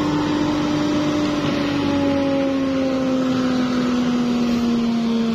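Electric blower fanning an oil-fired burner that heats a powder-coating oven, running steadily: a rushing of air and flame under a motor hum that slowly sinks in pitch.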